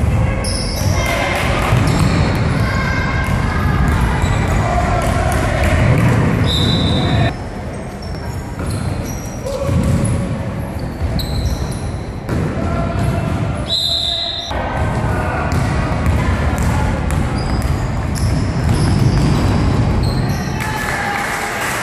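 A basketball bouncing and players running on a wooden gym floor, with shouting voices echoing around a sports hall. Two short, high-pitched squeaks come about a third of the way in and again past the middle.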